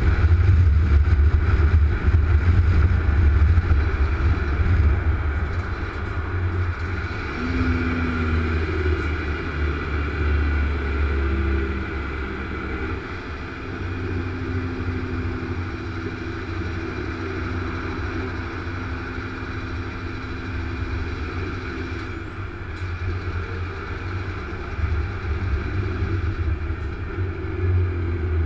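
Truck cab interior while cruising on a motorway: steady diesel engine drone and tyre and road noise, a low rumble that is louder for the first five seconds or so, then settles a little quieter.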